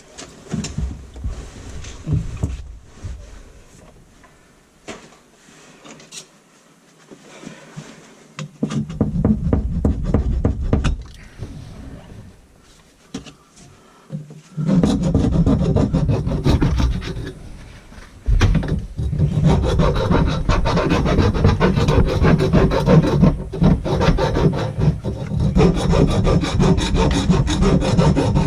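Abrasive scraping and rasping on the cut end of a drain pipe as it is cleaned up: scattered strokes at first, then nearly continuous from about halfway through, with a short break a few seconds later.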